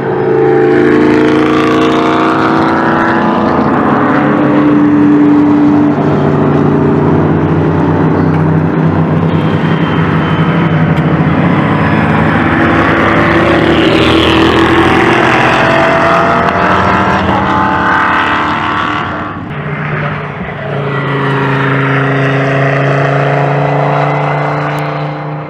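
GT3 race cars passing one after another at racing speed. Their engine notes rise and fall as each car goes by, with a short lull about 19 seconds in before the next car comes through.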